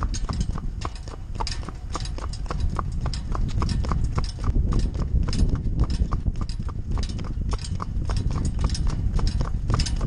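A horse's hooves striking asphalt at a steady walk as she pulls a cart, a few even hoofbeats a second, over a low rumble of wind on the microphone.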